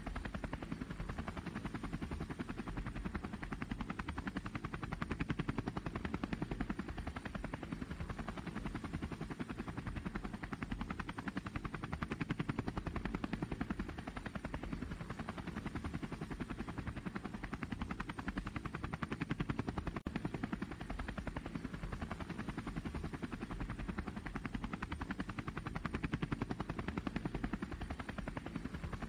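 DJI Phantom quadcopter's electric motors and propellers running steadily in flight, a dense rapid flutter with small swells in loudness.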